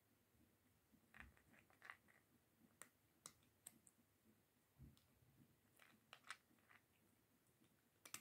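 Cat eating dry kibble from a plastic bowl: faint crunching that comes as short clusters of clicks a few times, with pauses between.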